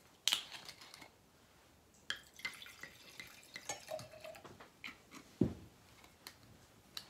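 Rosé wine poured from a bottle into a stemmed wine glass, starting about two seconds in, with a few light clicks and a dull knock later on.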